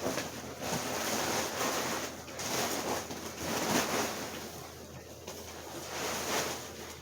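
Packing paper rustling and crumpling as it is handled and pulled out of a shipping box, in uneven swells, quieter for a couple of seconds past the middle.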